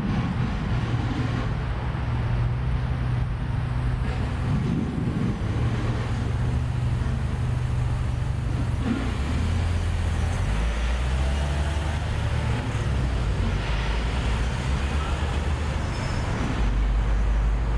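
City road traffic: car and van engines running and passing close by, a steady low rumble that shifts in pitch as vehicles come and go.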